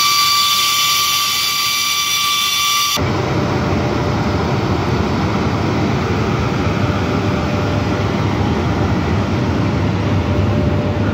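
EP1M electric locomotive pulling out with a train: a high-pitched whine of several steady tones that cuts off suddenly about three seconds in, then a steady low rumble as it moves off.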